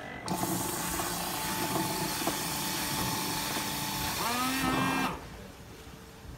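Single-cup washer spraying water inside its chamber: a loud, even hiss of the spray over a steady pump hum. The hum shifts in pitch just before everything cuts off abruptly about five seconds in.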